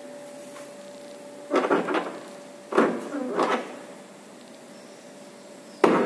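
Lada Vesta rear door being swung open, its hinges or seals creaking twice as it moves, then a sharp knock near the end. The creak is the door fault the car is known for.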